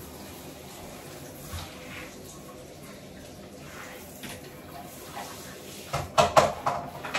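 Low, steady sound of water in a bathtub during a dog's bath. About six seconds in comes a quick run of five or six loud, sharp sounds as a plastic shampoo bottle is handled and squeezed.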